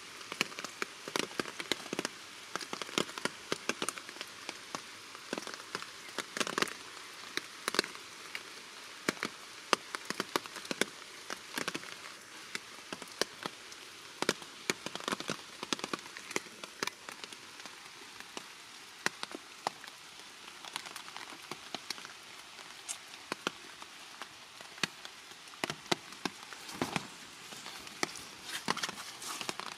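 Rain falling steadily as a continuous hiss, with many irregular sharp taps of drops striking nearby surfaces close to the microphone.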